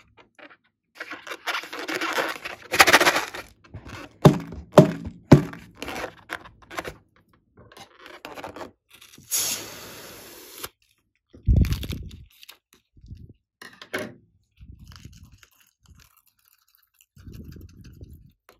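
Hands handling rubber balloons, with rubbery scraping and several sharp knocks. About nine seconds in, scissors cut the tip off a balloon with a loud, hissy rush lasting about a second. A low thud follows, then smaller soft sounds as the balloon's contents are squeezed out.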